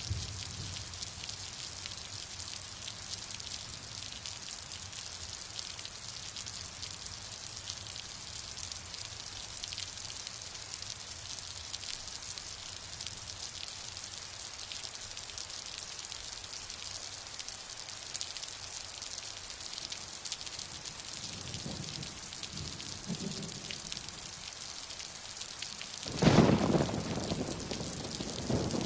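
Steady rain falling, a dense hiss of many fine drops. Faint low rumbles come in about three quarters of the way through, then a sudden loud clap of thunder near the end that rumbles for a second or two.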